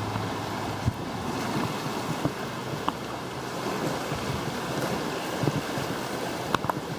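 Wind-driven waves on a lake splashing and lapping steadily, with wind buffeting the microphone and a few short sharp splashes or knocks.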